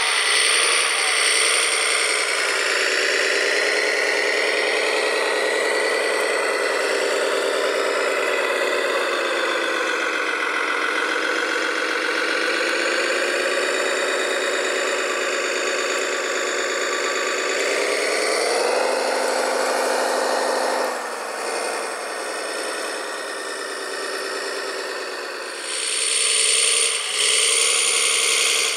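Radio-controlled model tracked dumper (a Morooka crawler carrier) driving over gravel: a steady engine-like drone with rattling from its drive and tracks, the pitch falling and rising with its speed. The drone drops and quietens about three-quarters of the way through, then picks up again near the end.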